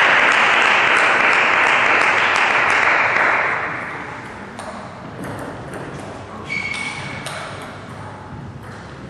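Spectators applauding after a point in a table tennis match, loud at first and fading away after about four seconds. A few faint taps follow in the quieter hall.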